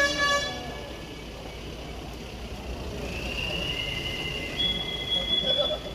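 Outdoor noise of a large crowd walking along a street. A short squeal with a falling pitch comes right at the start, and high, steady whistle-like tones are held for a second or two each in the second half.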